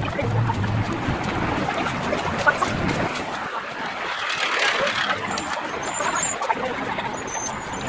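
A car passing on the road: its tyre and engine noise swells about halfway through and then fades.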